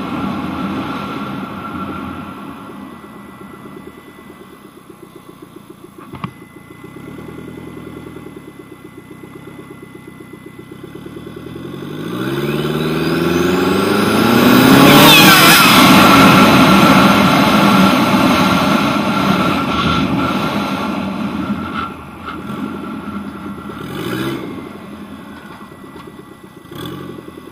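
Turbocharged lawn-tractor engine running light, then accelerating hard about halfway through, its pitch climbing together with a rising whistle. A loud rushing of air follows as boost blows the electrical-tape intake couplers loose. The engine then falls back and slows, with two short blips of throttle near the end.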